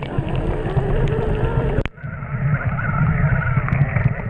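Mountain bike riding on a wet trail: steady wind buffeting on the microphone, with scattered clicks and rattles from the bike. The sound breaks off abruptly about two seconds in and carries on with a thinner tone.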